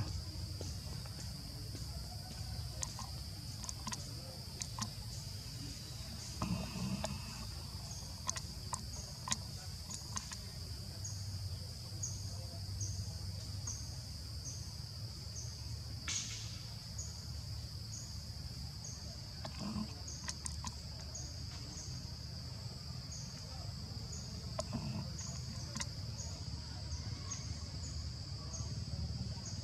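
Insects in a steady high-pitched drone, with a regular chirp about twice a second, over a low steady rumble and a few faint clicks.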